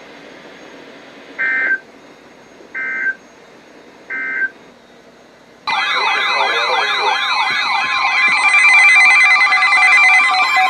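Three short bursts of Emergency Alert System SAME header data from a NOAA weather radio broadcast, about 1.3 seconds apart. A little past halfway, several alert alarms go off at once, warbling siren-like tones over steady tones, signalling an incoming severe thunderstorm warning.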